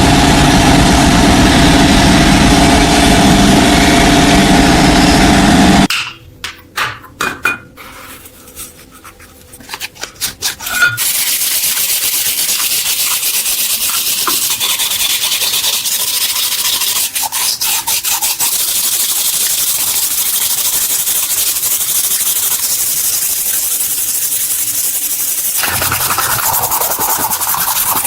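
Abrasive rust-removal work on metal. A loud power tool runs for about six seconds and stops. A few scattered knocks and clicks follow. Then a steady, loud rubbing, sanding-like noise runs on for about fifteen seconds.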